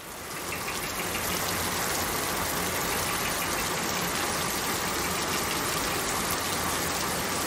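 Steady rain falling, an even hiss-like patter, fading in over the first second or so.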